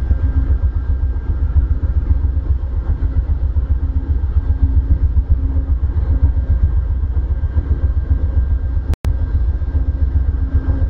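Steady low rumble of a stopped Amtrak passenger train's diesel locomotive idling, with a throbbing hum over it. The sound cuts out for an instant about nine seconds in.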